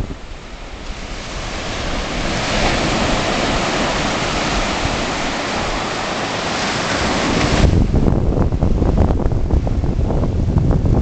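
Surf breaking and washing up a sandy beach: a steady hiss of foam that builds over several seconds. About seven and a half seconds in, the sound changes abruptly to a heavy low rumble of wind buffeting the microphone over the waves.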